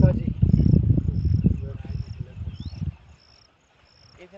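A cricket chirping in short, high, evenly repeated pulses, about one every two-thirds of a second. For the first three seconds a loud, irregular low rumble covers it, then cuts off suddenly.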